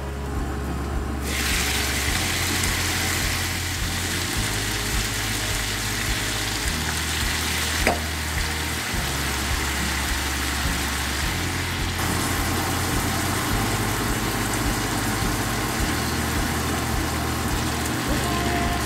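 Chicken pieces sizzling in oil in a nonstick frying pan over a gas flame, a steady frying hiss that starts about a second in. A single sharp knock comes about eight seconds in.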